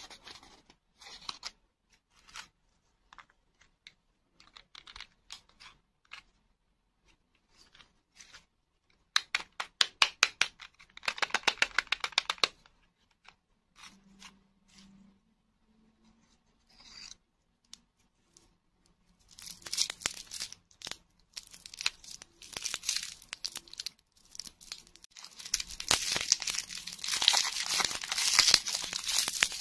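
Close handling of paper and a small cardboard box, with soft scattered clicks and a quick run of taps about a third of the way in. From about two-thirds in, a shiny lollipop wrapper is peeled off, making loud crinkling and tearing.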